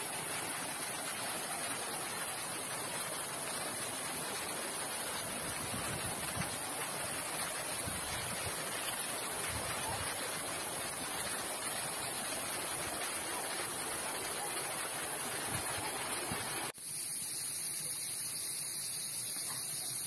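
Shallow river rushing steadily over a stony bed. About three seconds before the end the sound cuts off abruptly, leaving a thinner, quieter outdoor background.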